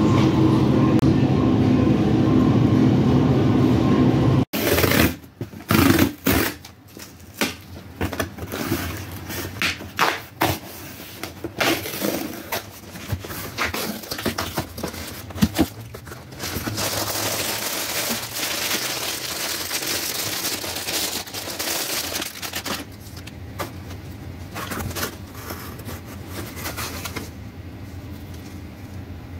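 A steady low rumble with humming tones cuts off suddenly about four seconds in. Then a cardboard shipping box is opened by hand and a plastic-wrapped garment is pulled out: cardboard flaps scraping and knocking, and plastic packaging crinkling and rustling, with a longer stretch of steady crinkling in the middle.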